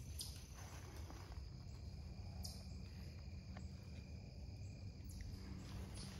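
Insects trilling steadily in the background, a thin high-pitched trill, over a low rumble of walking and phone handling.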